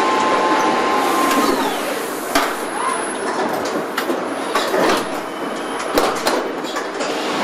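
Car assembly-line machinery running: a steady mechanical hiss with sharp metallic knocks and clanks every second or so, and a whine that glides down and dies away in the first two seconds.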